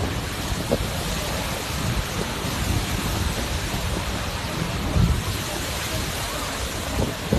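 Lava flowing into lake water: a steady hissing rush over a low rumble, with a few short pops.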